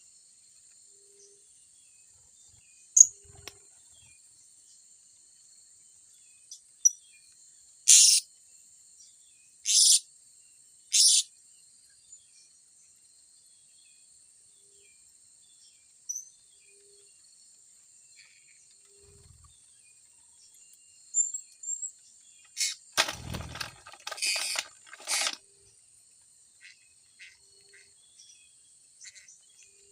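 Blue-crowned hanging parrots giving short, sharp, high-pitched calls: three single calls about eight to eleven seconds in, then a cluster near the end with a rustle and a low thump among them. Under them runs a steady high-pitched insect drone.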